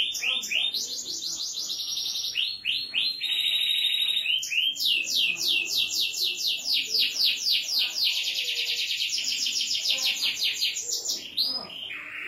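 Domestic canary singing in full, vigorous song: fast runs of high repeated notes and trills, with a long even roll of about seven notes a second through the middle, breaking off shortly before the end.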